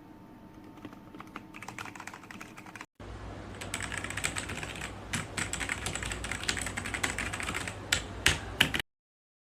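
Machenike K500 B84 mechanical keyboard being typed on rapidly: a fast, dense run of key clicks. It breaks off briefly about three seconds in and resumes louder. A few harder keystrokes come near the end before it stops abruptly.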